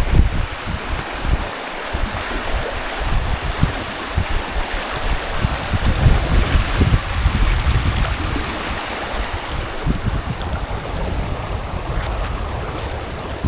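Water rushing at a waterfall, a steady hiss, with wind buffeting the microphone in gusts.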